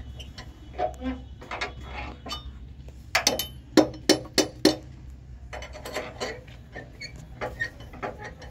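Sharp metal clanks and wooden knocks of a log being handled and set on a sawmill trolley, with a quick run of about half a dozen loud knocks near the middle, over a steady low hum.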